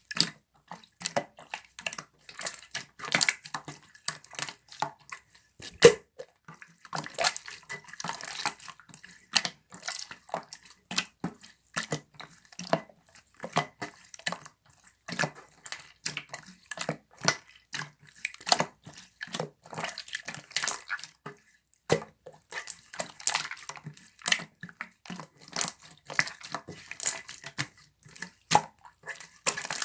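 Slime being squeezed, pressed and stretched by hand, giving a dense, irregular run of wet clicks and pops.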